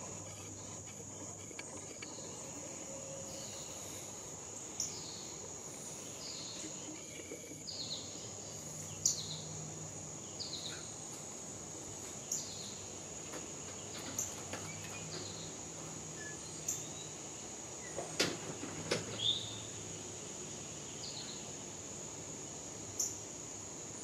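Outdoor garden ambience: a steady high-pitched insect trill runs throughout, with short, sharp, downward bird chip notes every second or two. A few louder clicks come about three quarters of the way through.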